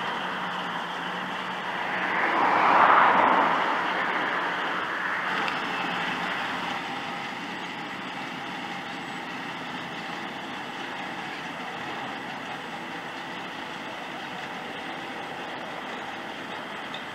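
New Holland T7.210 tractor and trailed Grimme SE 150-60 potato harvester running steadily, engine and harvester machinery together. The sound swells to its loudest about three seconds in, then settles to a steady drone.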